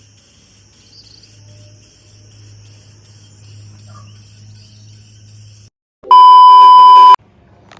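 Faint insect chirping in an even, pulsing rhythm, then it cuts out and a loud steady electronic beep tone sounds for about a second near the end.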